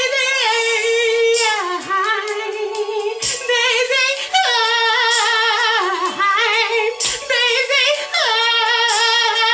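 A woman singing held notes and melodic runs with heavy vibrato, without clear words.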